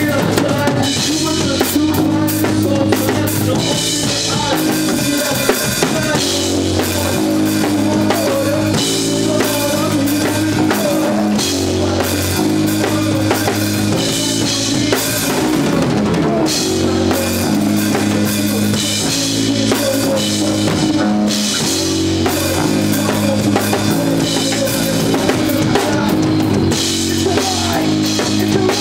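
A live band playing, with the drum kit loud and close in the mix: bass drum and snare keeping a steady beat and cymbals splashing on top, over sustained bass and electric guitar notes.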